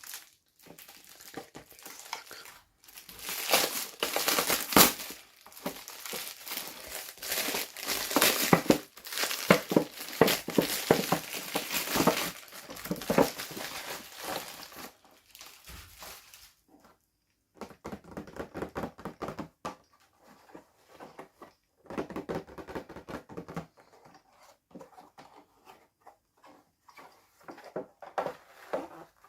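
Packaging being crinkled and torn open by hand, with long crackly stretches in the first half and shorter bursts later.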